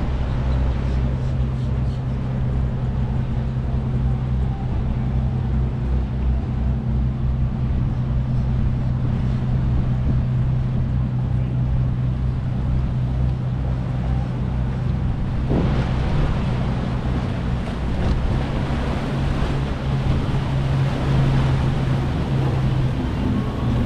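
Motorboat engines running with a steady low drone over a rush of water and wind. A louder hiss of water joins about two-thirds of the way in.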